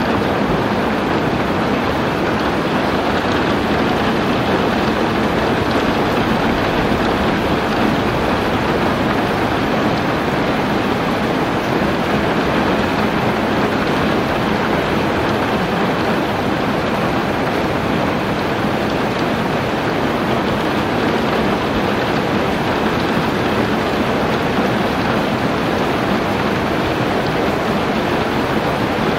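Heavy rain pouring steadily: a dense, even noise with no breaks or single impacts.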